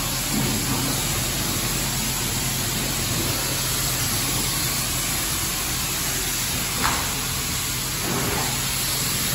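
Steady hiss of car wash water spraying under pressure, over a low, even pump hum.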